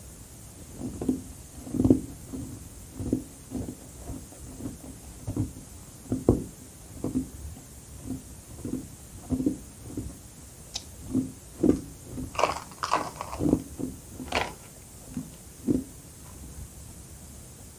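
Crushed carbonated ice being chewed: steady crunching bites about two a second, with a few sharper, crisper crunches in the last third, stopping shortly before the end.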